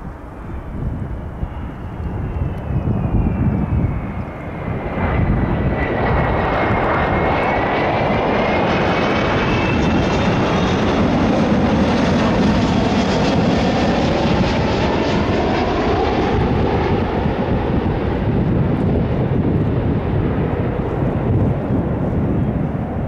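Delta Air Lines Airbus A330-300 twin-engine jet airliner flying over on its landing approach. The jet roar builds over the first few seconds and then holds loud, while the engine whine slides down in pitch as the plane passes.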